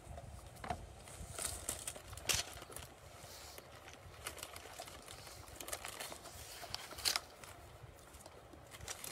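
Thin Bible pages being leafed through and rustled in a search for a passage, with soft scattered clicks and brushes over a low, steady background hum.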